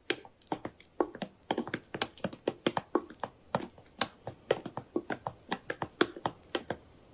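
Footsteps of several people walking on a stone floor: quick, irregular hard clicks of shoes, several a second, that thin out and stop near the end as they come to a halt.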